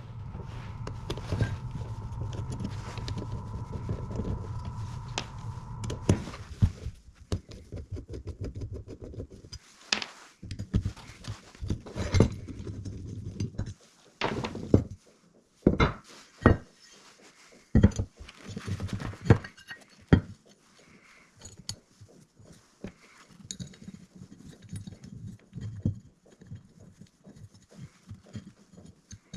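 Metal clinks, taps and knocks of hand tools and small metal parts being handled while a mounting bracket is swapped on an excavator stop motor. A steady hum runs for about the first six seconds.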